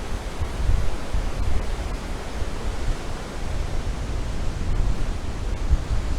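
Heavy ocean surf from a strong typhoon swell breaking on a beach: a steady rushing wash, with wind buffeting the microphone in gusts.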